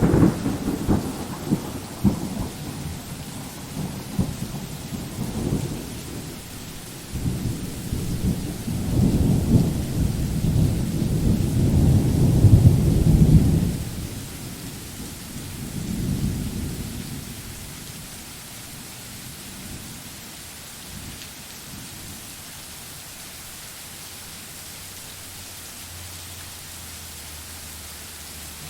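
Thunder over steady rain: a sharp clap at the start, then a long deep rumble that builds to its loudest and breaks off about fourteen seconds in. A weaker roll follows shortly after and fades, leaving only the hiss of rain.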